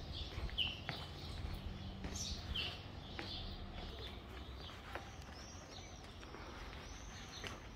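Small birds chirping and calling outdoors in short, repeated high notes, with arched, sweeping calls in the second half, over a steady low hum that fades out about halfway through.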